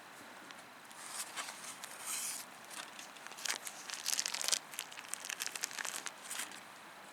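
Crinkling and rustling in irregular bursts, like something being handled or crumpled, loudest a little past the middle and dying away near the end.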